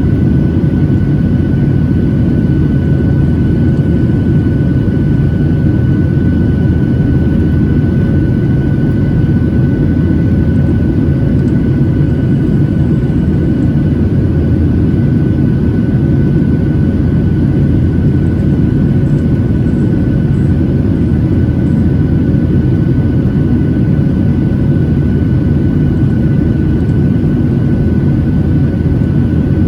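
Cabin noise of a Boeing 737-800 airliner under way, heard from a window seat: a steady low rumble from its CFM56-7B jet engines and airflow, with a thin steady whine above it.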